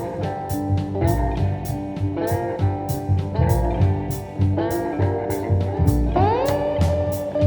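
Instrumental background music: bending electric-guitar notes over a steady drum beat, with a long upward slide into a held note about six seconds in.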